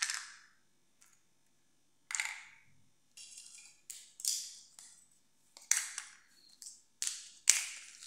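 Small hollow plastic toys set down one after another on a hard tiled floor: a series of sharp plastic clacks and taps about a second apart, the loudest near the end.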